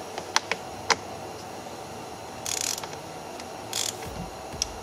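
A ratchet with a 10 mm socket loosening a steering-wheel airbag retaining bolt. A few sharp clicks in the first second are followed by two short ratcheting rasps, one past the middle and one near the end.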